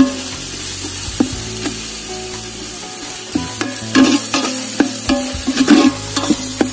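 A steel ladle stirring and scraping an onion-and-tomato masala as it sizzles and fries in oil in a steel pot. The ladle clicks against the pot's sides, more often and louder from about three and a half seconds in.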